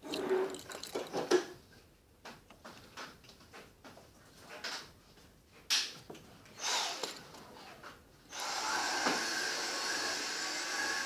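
Irregular scratches and rustles of a pencil drawing on paper, with some handling knocks. About eight seconds in, a steady whirring hum with a high whine starts suddenly and keeps going.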